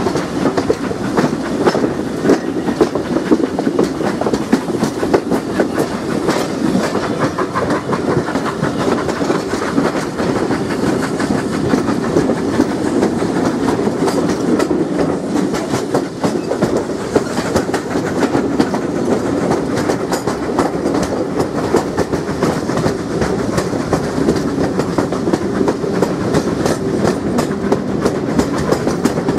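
Steam-hauled heritage train under way behind GWR 4200 class 2-8-0 tank engine No. 4270, heard from a carriage window: steady wheel clatter over the rail joints mixed with the locomotive's working exhaust.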